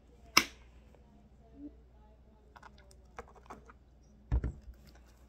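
Handling of a conditioner bottle and sticky slime: a sharp click about half a second in, then a few light clicks and a low thud near the end.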